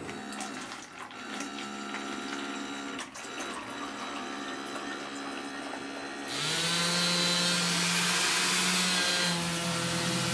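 A small homemade DC water pump runs, with water pouring through a plastic tube into a plastic cup. The pump starts about six seconds in, giving a sudden loud hiss of flowing water with a steady motor whine, after a quieter stretch of steady tones.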